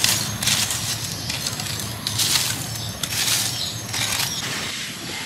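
Irregular swishing and scraping as a wooden stick pushes charcoal embers and ash up around a clay pot, about one swish a second.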